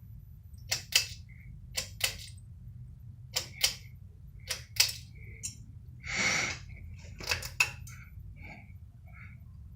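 Harbor Breeze Sandoval ceiling fan running with a steady low motor hum. Five pairs of sharp clicks sound over it, each pair about a quarter second apart, and there is a brief hiss about six seconds in.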